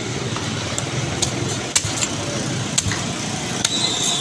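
A large curved butcher's knife cutting through the head of a katla fish on a wooden block, giving about six sharp, irregular clicks and knocks of the blade. Behind it is a steady motor-like hum.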